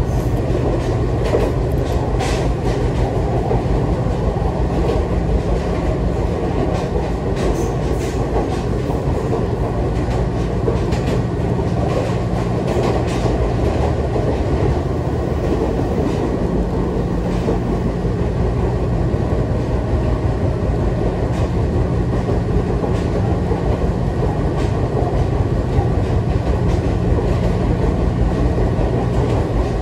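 Electric commuter train heard from inside the car while running at speed: a steady rumble and hum of the wheels and motors on the track, with scattered irregular clicks from the wheels on the rails.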